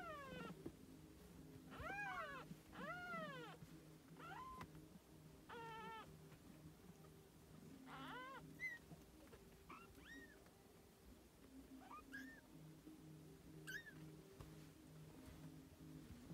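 Newborn Siamese kittens mewing: faint, high-pitched, rising-and-falling mews, about a dozen of them, a second or two apart, over a low steady hum.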